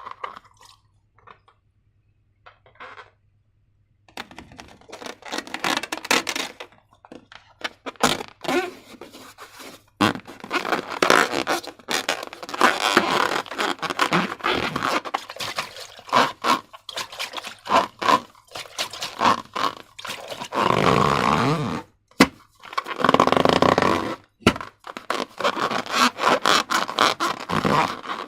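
Slime being worked and squished, with scraping and many small sticky clicks and pops. Almost quiet for the first few seconds, then busy from about four seconds in, with two louder squelching stretches near the end.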